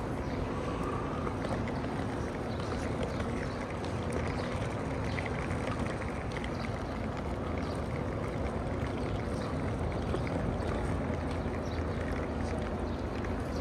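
Steady wind noise with a low hum underneath and faint scattered ticks.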